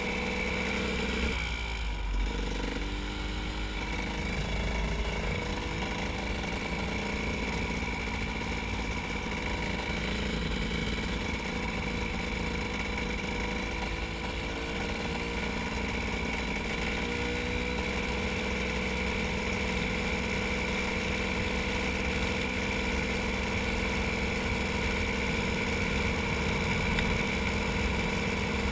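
KTM 300 EXC's two-stroke single-cylinder engine pulling steadily at road speed. The engine note breaks briefly and changes pitch twice, about two seconds in and again a little past halfway.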